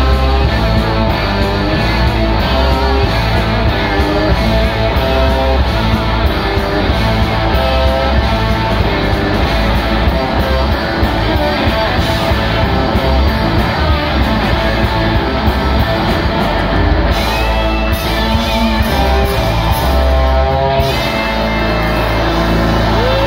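Live blues-rock band playing an instrumental: three electric guitars trading and layering lead lines over bass and drums, loud and continuous.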